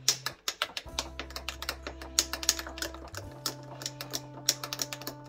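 Metal spoon stirring ice in a glass of juice, clinking quickly and irregularly against the glass and the ice cubes, over steady background music.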